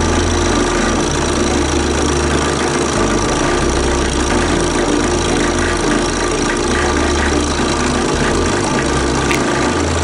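Drill press motor running steadily with a constant whine, its low hum shifting slightly in level.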